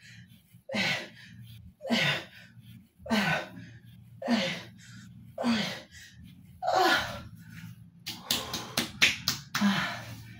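A man's strained grunts, one with each sit-up crunch about every second, each falling in pitch. About eight seconds in, a quick run of sharp slaps.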